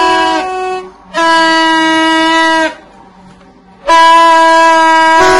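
Green plastic vuvuzela-style toy horns blown in long, steady, single-note blasts. One blast ends just under a second in, a second runs from about one to nearly three seconds, and a third starts near four seconds.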